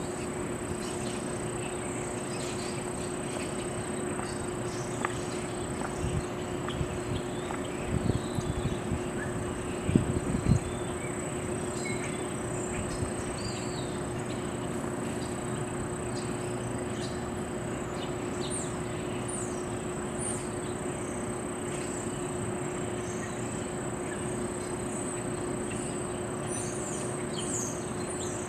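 Outdoor ambience: insects keep up a steady high trill, with a steady low hum under it and scattered bird chirps, more of them near the end. A few low knocks come about eight and ten seconds in.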